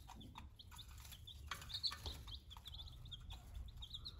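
Baby chicks peeping: many short, high chirps from several birds, coming thicker near the end, over a faint low rumble.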